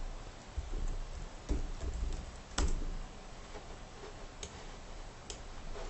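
A few irregular clicks from a computer keyboard and mouse as values are typed and parts are selected on screen, the loudest about two and a half seconds in.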